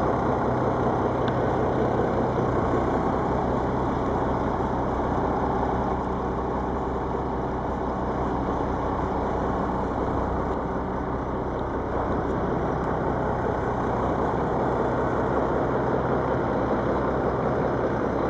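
1982 Cummins 290 turbo diesel engine in a bus, idling steadily.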